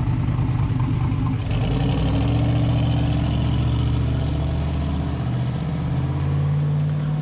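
Turbocharged LS V8 in a square-body Chevrolet truck running steadily as the truck is driven, its pitch stepping up about five seconds in.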